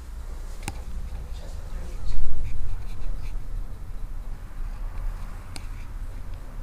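Rumbling handling noise on a handheld camera's microphone as it is carried along, loudest about two seconds in, with two sharp clicks, one near the start and one near the end.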